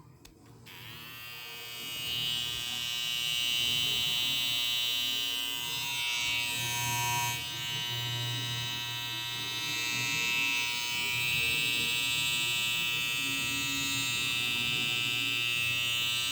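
BaBylissPRO cordless hair trimmer switched on, its motor coming up to speed over the first couple of seconds, then running with a steady buzz.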